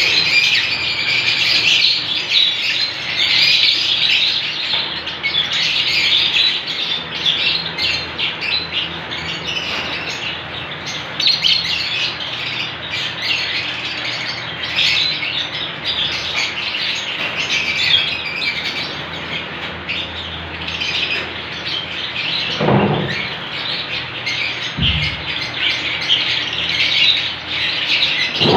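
A flock of caged lovebirds (Fischer's and masked lovebirds) chattering, a dense, unbroken stream of high-pitched chirps from many birds at once.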